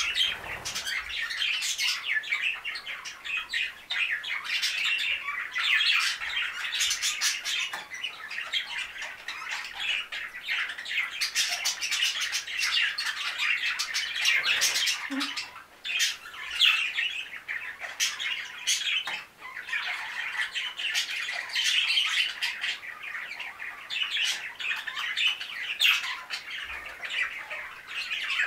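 A group of budgerigars chattering and chirping without pause, a dense run of short chirps, warbles and squawks, with a couple of brief lulls around the middle.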